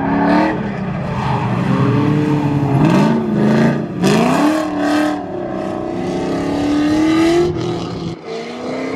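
Drift car's engine revving hard in repeated rising pulls as it slides, with loud noisy bursts from about three to five seconds in.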